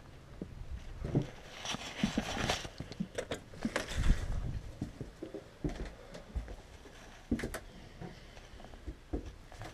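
Footsteps and knocks as the door of a small wooden outhouse is opened and someone steps inside, with scattered clicks and rustling, busiest about two to four seconds in.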